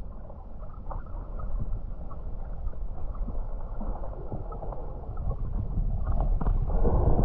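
Muffled underwater rumble and gurgle of a cave river, heard through a submerged camera, with faint scattered clicks; it swells louder near the end.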